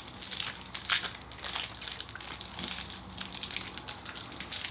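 Plastic wrappers of small Cadbury chocolate bars crinkling as they are pulled open by hand, a dense run of sharp crackles.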